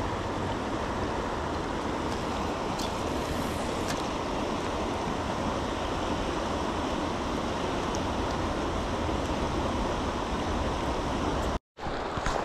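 Creek water rushing steadily, broken near the end by a brief moment of dead silence.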